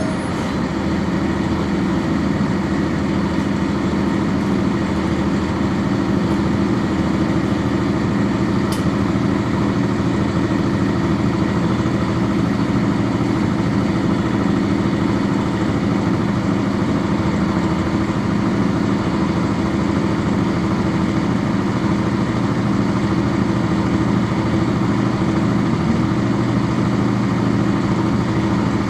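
Cummins ISC inline-six diesel engine of a 1999 NovaBus RTS transit bus, heard from on board, running steadily at an unchanging pitch as at idle.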